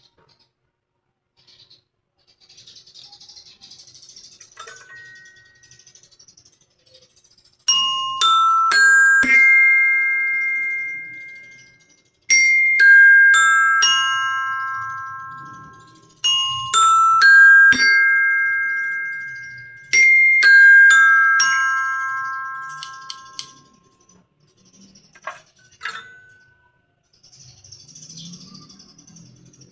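Airport public-address announcement chime: a four-note ringing chime that climbs, then the same four notes falling, played twice over, each note left to ring and fade. Faint hiss before and after the chimes.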